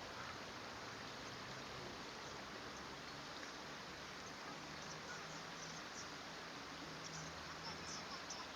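Steady outdoor background hiss with a few faint, short high-pitched ticks in the second half.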